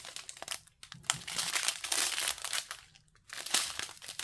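Small plastic bags of diamond painting drills crinkling and rustling as they are handled, in irregular bursts with two brief pauses.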